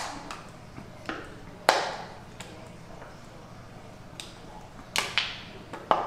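Close-miked mukbang eating sounds: a handful of sharp crunches and clicks at irregular intervals, one about two seconds in and a cluster about five to six seconds in.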